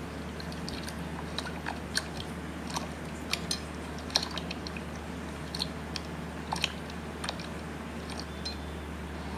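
Slime being squeezed and poked by hand, making irregular small sticky clicks and pops over a steady low hum.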